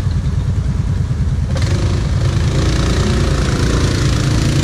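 Quad bike engines running, a low steady idle close by; about a second and a half in a louder hissing rush joins with an engine revving up as a quad churns through deep mud.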